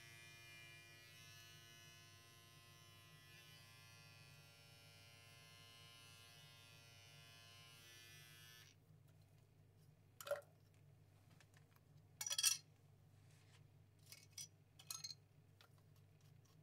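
Electric pet hair clippers running with a steady buzz as they cut a long-haired cat's fur; the buzz stops abruptly about halfway through. A few short clicks and knocks follow, the loudest a little after the buzz ends.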